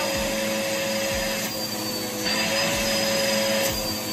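Vacuum cleaner running with a steady motor whine, its pitch dipping slightly about halfway through and again near the end.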